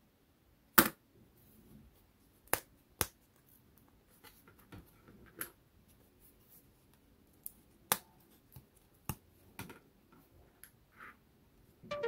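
Thin laser-cut wooden kit parts being snapped out of their sheets by hand: a handful of sharp cracks spread through, the loudest about a second in, with light rustling and tapping of the sheets between.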